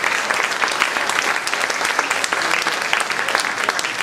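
Audience applauding: many hands clapping at once, at an even level.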